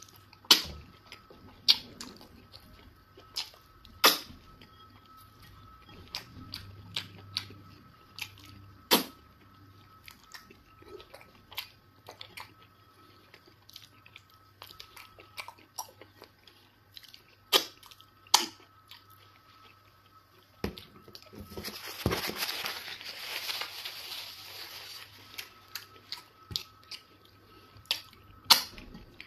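Close-up eating sounds of a person eating eba with egusi soup by hand: wet chewing with many sharp lip smacks and mouth clicks, and a louder hissing stretch of about three seconds a little past the middle.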